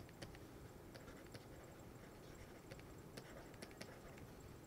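Faint, irregular clicks of a stylus tapping on a pen tablet while handwriting, over near-silent room tone.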